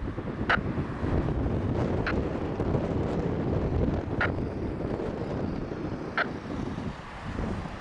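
Airbus A319 flight-deck noise during the landing approach: a steady rush of airflow and engine rumble, with four short high-pitched chirps about two seconds apart.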